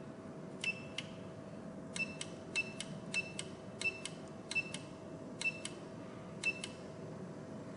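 Membrane keys on the control panel of a YG(B)981D fibre oil rapid extractor being pressed, each press giving a short, high electronic beep. There are about eight beeps, spaced roughly half a second to a second apart, as the time setting is stepped up. A faint steady hum runs underneath.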